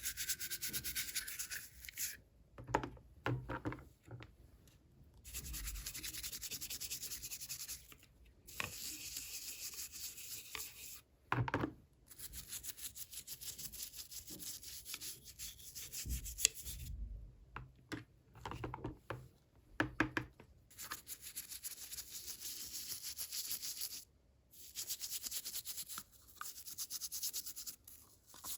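Hands rubbing and rustling packaging while unboxing small toys, in stretches of a few seconds broken by short pauses, with scattered light knocks and taps as pieces are handled.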